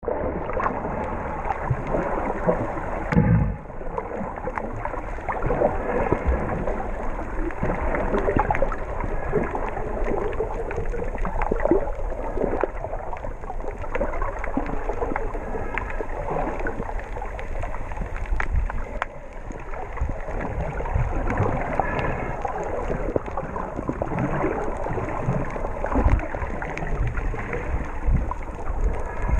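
Muffled underwater sound picked up by a camera held below the surface: a continuous wash of moving water with gurgling and scattered small clicks, and one louder knock about three seconds in.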